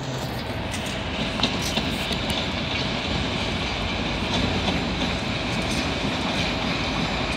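2M62U two-section diesel locomotive hauling a freight train past, its two-stroke diesels giving a steady drone, with light clicks of wheels over the track here and there.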